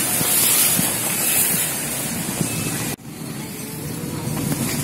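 Steady rushing noise of a vehicle travelling on a hill road, with strong hiss. It cuts off abruptly about three seconds in, then resumes duller with a faint steady hum.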